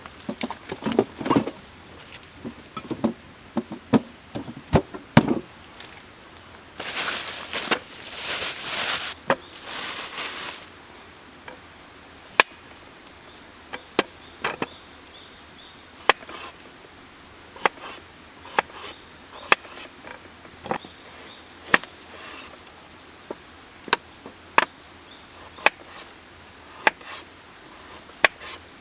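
A knife chopping on a cutting board in slow, single strokes about a second apart, after some rustling and handling noise in the first part.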